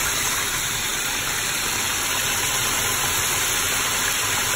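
Breaded chicken pieces deep-frying in a pan of hot oil near the end of cooking: a steady, even sizzle of bubbling oil.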